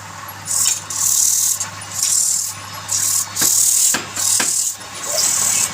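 Repeated short, hissy scraping strokes on wood, each about half a second to a second long and coming roughly once a second, over a steady low hum.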